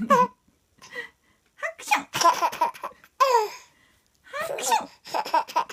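An adult's exaggerated 'hakushon' sneeze and a 10-month-old baby's laughter, coming in short bursts of quick pulses.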